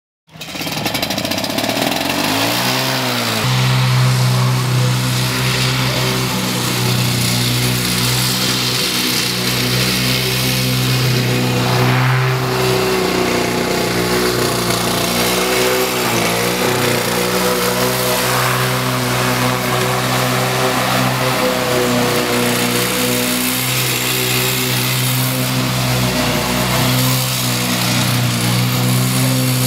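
Gasoline walk-behind lawn mower engine running. Its pitch climbs over the first few seconds, then holds steady.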